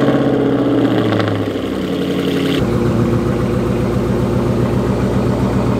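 2006 Mustang GT's 4.6-litre three-valve V8 idling steadily just after being started. About two and a half seconds in, the idle turns deeper.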